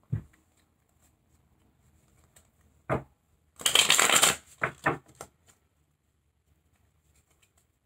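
A deck of tarot cards being handled and shuffled: a knock at the start, then a quick ruffle of cards followed by a few short slaps of the cards.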